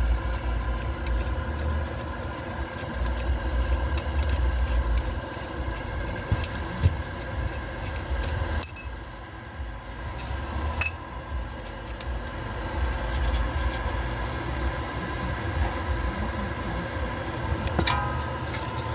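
Scattered metal clinks and rattles as a crankshaft harmonic balancer is worked off its snout by hand, over a steady low hum.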